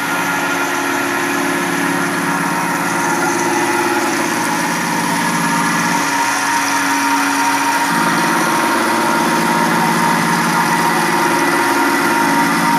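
CNC vertical milling machine running, its spindle (a Fanuc AC spindle motor) turning an end mill that is cutting a metal block, with a steady whine and cutting noise. A lower hum under it drops out for about two seconds near the middle and then comes back.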